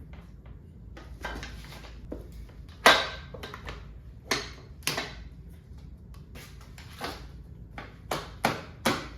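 A series of sharp knocks and clicks of hard objects being handled, the loudest about three seconds in and several in quick succession near the end, over a low steady hum.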